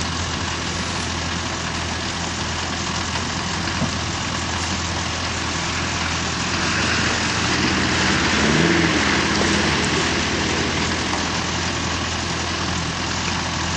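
Off-road 4x4 engine idling steadily, growing somewhat louder for a few seconds in the middle.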